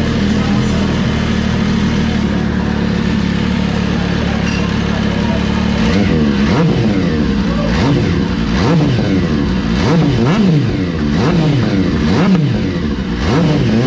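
MV Agusta F3 three-cylinder engine through its stock exhaust, idling steadily, then revved in a quick run of throttle blips from about six seconds in, each rising and falling in pitch.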